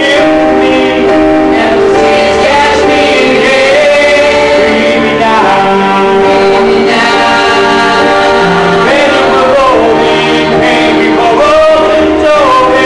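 Male voices singing a musical theatre song live into handheld microphones, holding long notes over a steady accompaniment.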